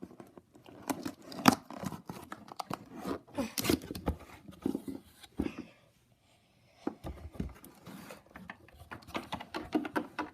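A small toy box of cardboard and plastic being opened by hand: irregular rustling, tearing and clicking of the packaging, with a brief pause about six seconds in.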